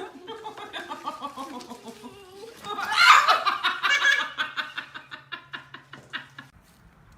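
A person laughing hard in quick repeated bursts, loudest about three seconds in, trailing off near the end.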